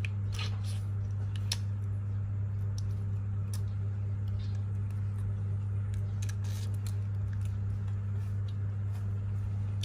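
A steady low hum throughout, with a few faint, scattered clicks and ticks.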